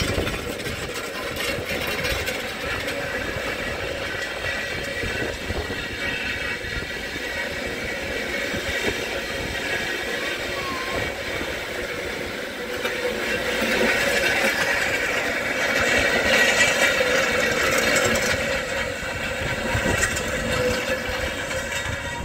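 Tractor engine running under a light load as it pulls a Wishek disc across ice, the disc blades clattering and scraping as they chip up the ice. The din gets louder for a few seconds past the middle, then eases.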